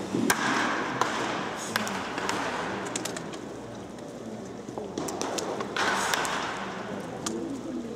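Machine batting practice: several sharp cracks of a bat hitting pitched balls, irregularly spaced, the loudest near the start, over a steady background murmur.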